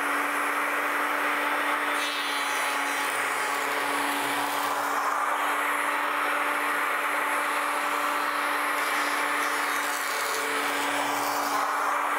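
Electric hand power planer running at full speed with a steady motor whine, shaving down a wooden paddle blade at a fine depth setting.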